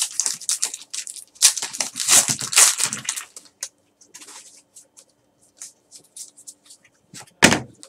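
Foil wrapper of a Donruss baseball card pack being torn open and crinkled for about three seconds, then softer flicks and rustles of the cards being thumbed through, with one brief louder rustle near the end.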